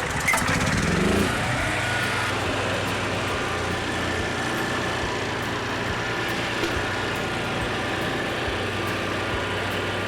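A small engine running steadily, with a constant hum.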